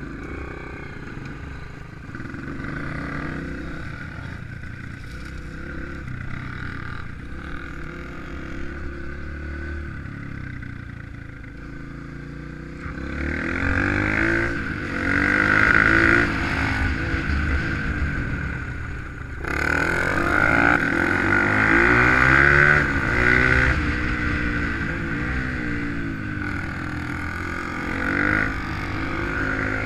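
Honda CRF150F dirt bike's single-cylinder four-stroke engine under way on a trail ride. It runs at fairly steady revs for the first dozen seconds, then gets louder from about 13 seconds in, its pitch rising and falling repeatedly as the throttle opens and closes.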